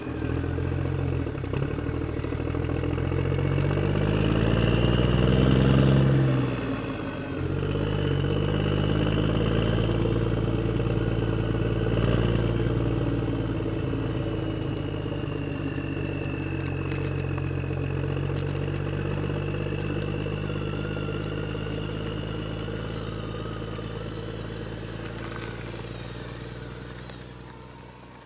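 Remote-control model tractor running: a steady engine-like hum with a thin high motor whine above it. It rises about four to six seconds in, dips briefly, then runs on and fades away near the end.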